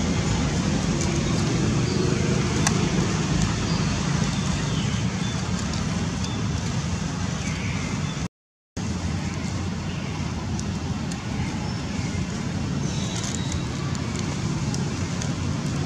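Steady low rumbling background noise, like distant road traffic, broken by a brief dead silence just past eight seconds in.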